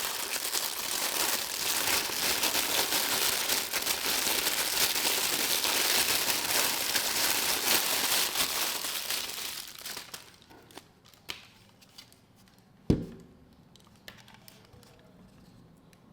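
Packaging being handled and unwrapped, a dense crinkling and rustling for about ten seconds that then stops, followed by a single knock a few seconds later.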